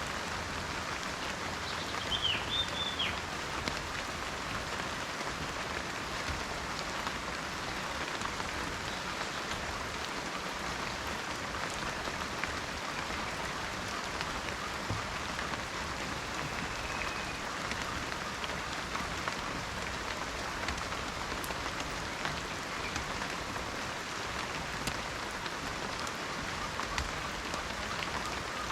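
Steady rain falling in a forest, a dense patter of drops on leaves and ground. A bird gives a quick run of chirps about two seconds in and a fainter call near the middle.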